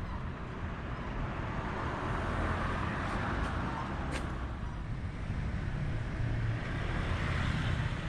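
Road traffic noise with a steady low rumble, swelling as vehicles pass about two seconds in and again near the end.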